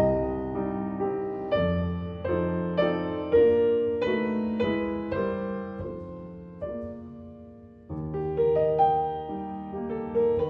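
Background piano music: slow, soft notes and chords, thinning out about seven seconds in before a new phrase starts about a second later.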